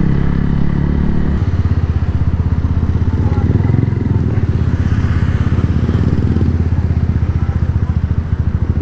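Suzuki Gixxer 150 Fi's single-cylinder engine running while the motorcycle is ridden. Its pitch drops about a second and a half in, then it settles into a low, even pulsing beat as the bike slows.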